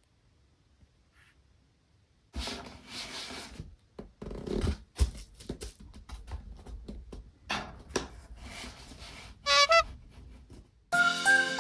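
Toy minicars rattling, clicking and knocking as they are handled and rolled, after a near-silent first two seconds. A brief warbling tone sounds near the end, and cheerful music starts in the last second.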